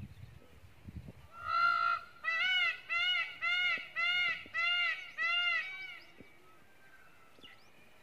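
Indian peafowl calling: one longer call, then six short arched calls in quick succession, about two a second.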